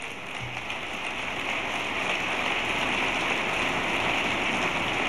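Audience applauding: a large crowd clapping, swelling over the first couple of seconds and then holding steady.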